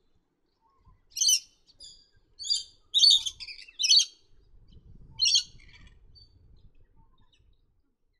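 Grey-crowned babblers calling: a run of harsh, chattering calls in about six loud bursts over roughly four seconds, ending about five and a half seconds in.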